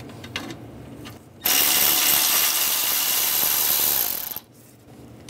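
Ratchet with a 10 mm socket backing out a bolt behind a condenser bracket, ratcheting steadily for about three seconds and starting and stopping abruptly.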